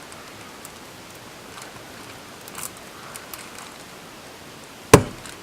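Faint scraping and rustling as a chilled block of bacon-grease birdseed suet is worked loose from its container, then a single sharp knock near the end.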